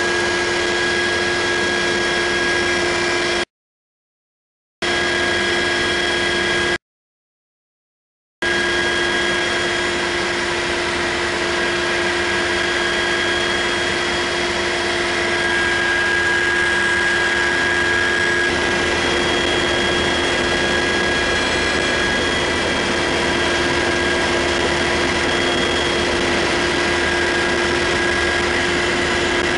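Cabin noise of a UH-60 Black Hawk helicopter in flight: the twin turboshaft engines, transmission and rotor make a loud, steady drone with several steady whining tones. The sound cuts out completely twice for a second or so, a few seconds in.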